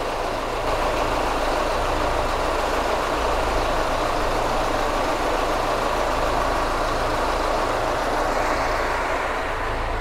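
Boat engine running steadily.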